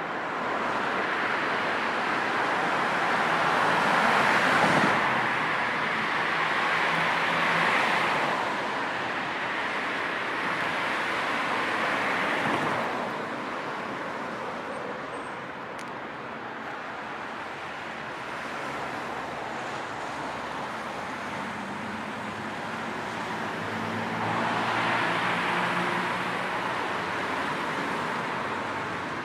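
Road traffic noise: a steady hiss of tyres and engines, with louder passes of vehicles swelling and fading several times, around 4, 8, 12 and 25 seconds in.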